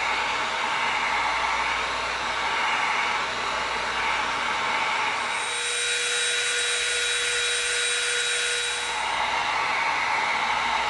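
Heat gun blowing steadily on an EVA foam part. For about three and a half seconds in the middle a Dremel rotary tool runs with a steady high whine.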